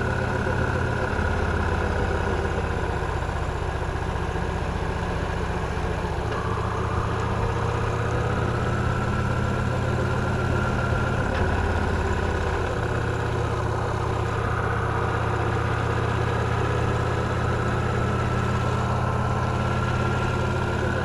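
Victory Cross Roads Classic LE motorcycle's 1700 cc V-twin engine running steadily, its note shifting slightly a few times.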